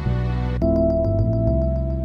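Background music on keyboard and synthesizer, with sustained low bass notes. About half a second in a new phrase starts, with a held high note over a quick, even pulse of about seven ticks a second.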